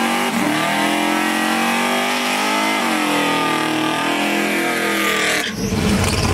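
Pontiac Firebird's engine held at high revs through a burnout, its rear drag slicks spinning on wet pavement; the pitch wavers and dips briefly, then the high note cuts off suddenly about five and a half seconds in, giving way to a lower rumble.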